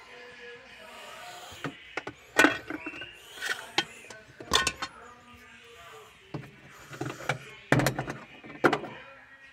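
Hard plastic car-interior parts, a dome-light lens and trim pieces, being handled and set down: a series of sharp knocks and clicks with some plastic rubbing between them.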